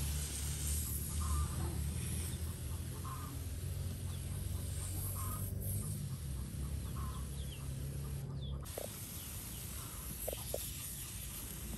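A chicken clucking now and then, short calls every second or two, over a steady low rumble that stops about eight seconds in.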